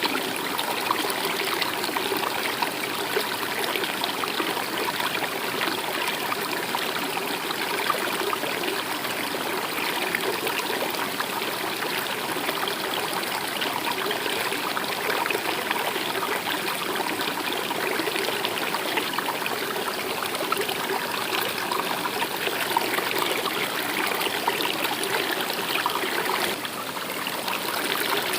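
River water flowing with a steady trickling babble, briefly a little quieter near the end.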